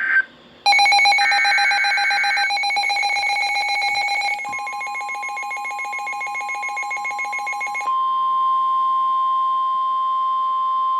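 NOAA Weather Radio emergency alert tones signalling an incoming warning. It opens with the warbling digital squawk of an EAS/SAME header burst, under a harsh rapidly pulsing electronic alarm beep. About four seconds in, the steady 1050 Hz warning alarm tone comes in and holds on alone from about eight seconds on.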